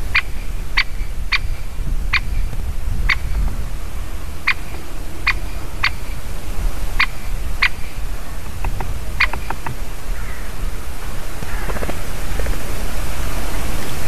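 Great spotted woodpecker giving short, sharp single calls, about a dozen spaced half a second to a second apart, which stop about nine seconds in. A steady low rumble of wind on the microphone lies underneath.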